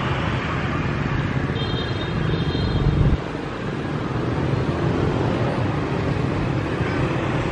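Steady low outdoor rumble, like distant road traffic, that swells and then cuts off abruptly about three seconds in. A faint high whistle-like tone is heard briefly about two seconds in.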